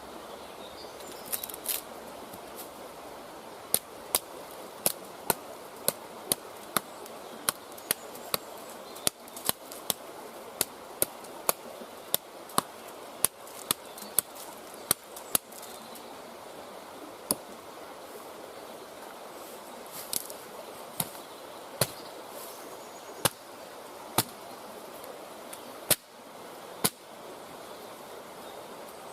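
Dry twigs and sticks snapping sharply as kindling is broken up by hand: a run of crisp cracks at about one a second, thinning out to occasional snaps later on.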